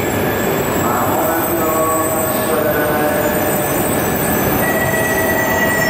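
Shinkansen bullet train running along the platform: a steady, loud rumble of wheels and rushing air with whining tones over it. A higher steady whine joins near the end.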